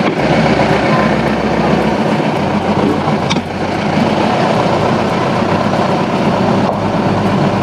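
Safari vehicle driving along a forest track: steady engine and road noise, with a short knock about three seconds in.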